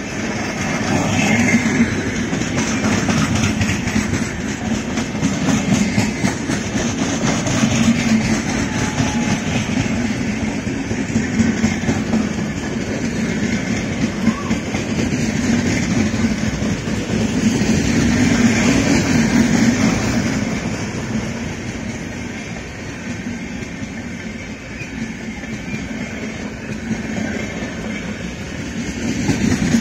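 Express train's passenger coaches passing at speed: a continuous rumble and rattle of steel wheels on the rails that swells and eases as coach after coach goes by, dipping somewhat about three-quarters of the way in before rising again near the end.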